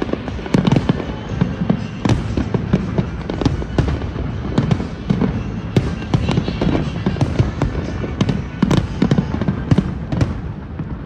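Large fireworks display: a dense, irregular barrage of sharp bangs and crackles over a low rumble, thinning out near the end.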